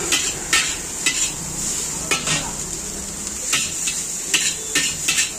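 Metal ladle scraping and clanking against a large wok as noodles are stir-fried, in uneven strokes over a steady high hiss.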